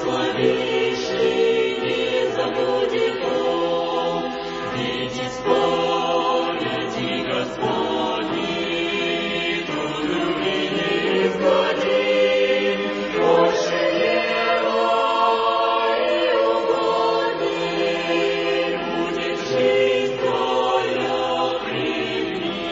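Choir singing in slow, held chords.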